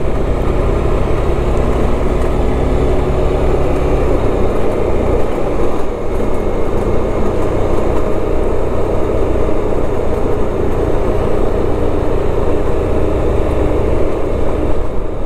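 Suzuki Burgman 400 scooter's single-cylinder engine running under way, mixed with steady wind and road noise.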